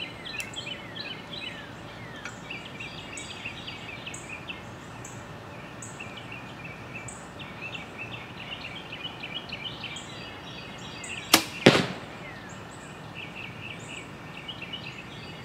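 A compound bow shot about eleven seconds in: the sharp snap of the released string, then a moment later the arrow striking a bag target. Birds chirp throughout.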